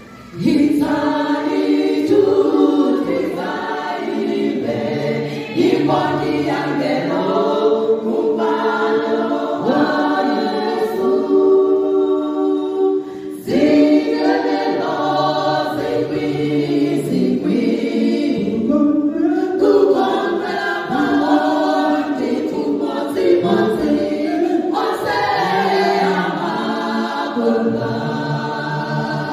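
Women's choir singing a hymn in Chichewa in several voice parts, unaccompanied, through handheld microphones.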